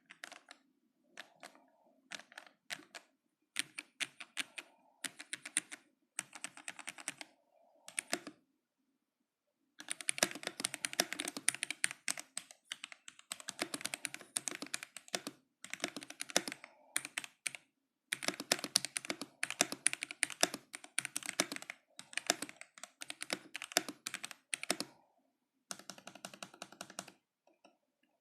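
Typing on a Modata K66 mechanical keyboard with Gateron Yellow linear switches: bursts of rapid keystrokes with short pauses, a longer pause about eight seconds in, and the typing stopping shortly before the end.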